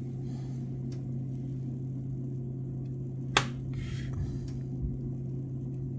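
A steady low hum of a kitchen appliance, with one sharp click about three and a half seconds in.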